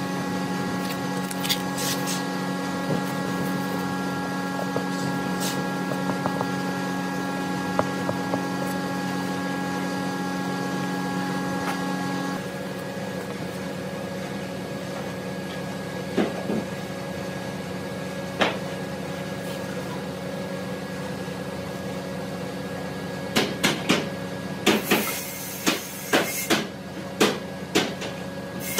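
Steady machine hum in a workshop, with faint scraping and ticks as a wooden spatula works glue on a board. The hum drops and changes about halfway through. Near the end comes a run of about ten sharp knocks, like wooden parts being knocked together.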